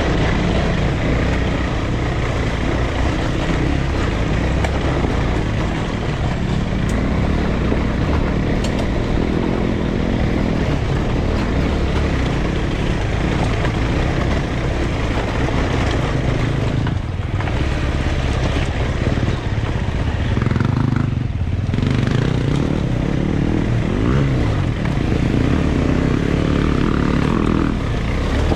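A vehicle engine running steadily, a loud continuous rumble with dense noise across the range.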